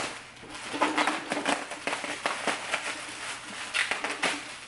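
Plastic bubble wrap crinkling and rustling in irregular crackles as it is pulled off and handled by hand.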